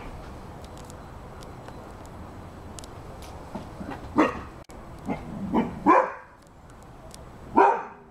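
Rhodesian Ridgeback barking: after a quiet stretch, a run of short, separate barks starts about four seconds in, some loud and a couple softer.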